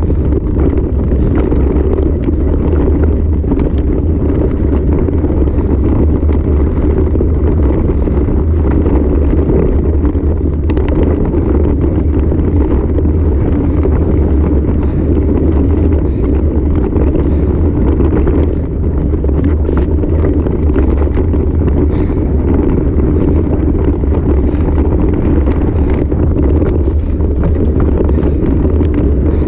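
Steady low rumble of wind buffeting the microphone of a camera on a bicycle, mixed with the bike's tyres rolling over grass and a dirt trail at speed.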